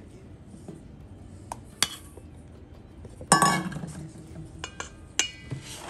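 A few metallic clinks as a stainless steel mesh sieve knocks against a stainless steel mixing bowl while flour is sifted in. The loudest knock, about three seconds in, rings briefly, and a quick cluster of lighter ringing taps follows near the end.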